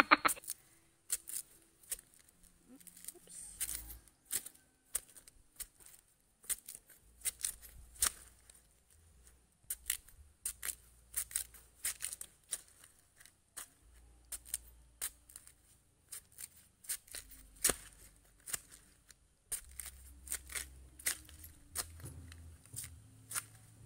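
Machete blade cutting and shaving the tough husk sheaths off a bamboo shoot: irregular short, crisp cuts, about one or two a second, with the dry sheaths tearing away.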